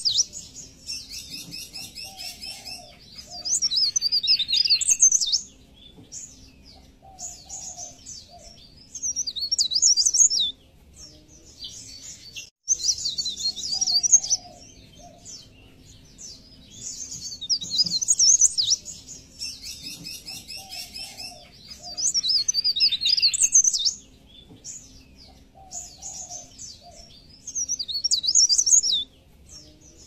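Burung pare-pare, a small yellow-green songbird, singing: bursts of high, quick twittering and trills one to two seconds long, coming back every few seconds, as in a masteran song recording for training cage birds.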